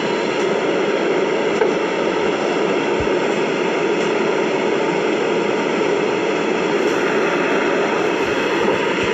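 Steady running noise inside a New York City subway car moving slowly through a station: a constant rushing noise with a few faint steady tones over it.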